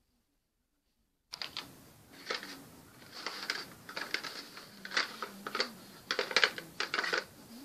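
Thick cardboard picture cards being shuffled and set down in a cardboard box: irregular clicks and taps as they knock against each other and the box, starting about a second in.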